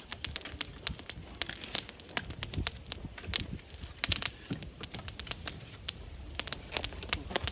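Small campfire of crumpled paper and thin twigs crackling, with frequent sharp, irregular pops and snaps.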